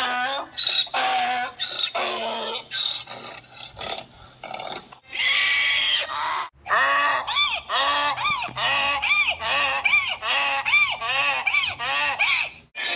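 Donkey braying: a wheezy, grunting start that builds into a long run of rhythmic hee-haw calls, about two a second.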